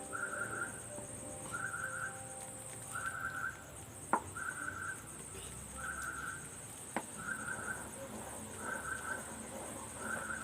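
A short pulsed chirp repeating about every second and a half, like a cricket or small bird calling, over a steady faint high whine, with two sharp clicks about four and seven seconds in.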